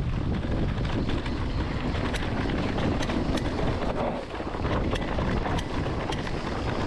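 Electric mountain bike riding over a rough dirt trail: steady rolling and tyre noise with a low rumble of wind on the microphone, broken by frequent sharp clacks of the bike rattling over bumps and stones.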